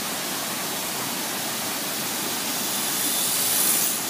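Steady roar of a large waterfall, with a brief louder, brighter hiss about three seconds in.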